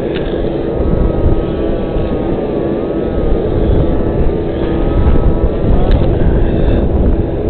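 A crane's engine running steadily with a thin whine that wavers up and down, under heavy low rumbling that sounds like wind on the microphone.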